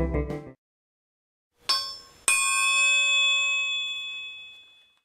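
Closing music cuts off about half a second in. A second later comes a short metallic ding, then a louder bell-like clang that rings out for about two and a half seconds.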